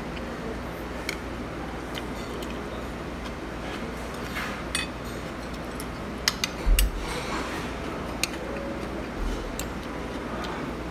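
Metal spoon clinking and scraping on a plate of fried rice, a handful of sharp clicks, most of them a little past the middle along with a soft low thump, over a steady low background hum.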